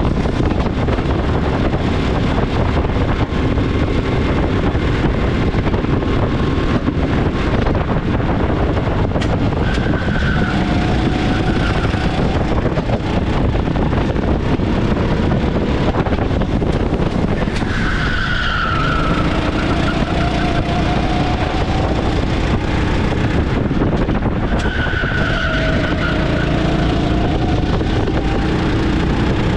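390 cc kart engine running hard at speed, its pitch climbing as it accelerates. The tyres squeal briefly three times: about a third of the way in, in the middle, and near the end.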